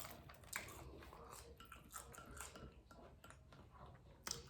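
A person chewing food close to the microphone: faint, irregular wet mouth clicks and smacks.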